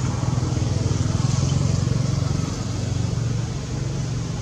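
An engine running steadily, a low hum that swells slightly about a second in and then eases.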